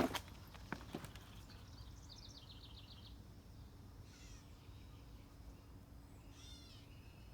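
High-pitched animal calls outdoors: a quick run of repeated notes, then a few short, falling calls, with a couple of footsteps crunching in the first second.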